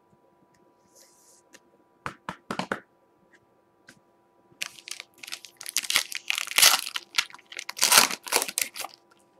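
Foil wrapper of a Prizm basketball card pack being crinkled and torn open: a few short crackles about two seconds in, then about four seconds of dense crackling and tearing, loudest near the end.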